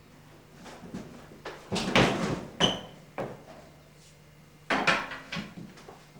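A run of knocks and bangs in four bunches, loudest about two seconds in, like cupboard or fridge doors and drawers being opened and shut. A low steady hum stops shortly before the first bangs.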